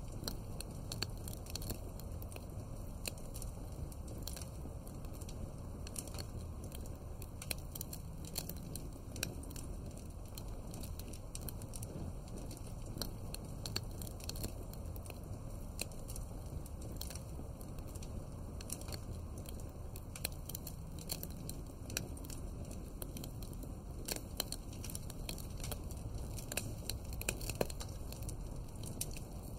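Wood fire crackling: irregular sharp pops and snaps over a low, steady rumble of flames.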